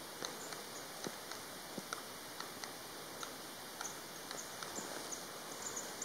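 Black woodpecker pecking at tree bark: scattered light taps at irregular spacing, roughly three a second, not a drumming roll.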